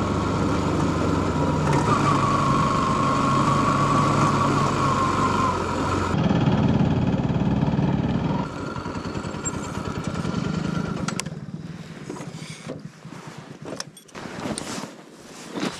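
Motorcycle engine running steadily, dropping in level about eight and a half seconds in and dying away at about eleven seconds. Scattered clicks and knocks follow.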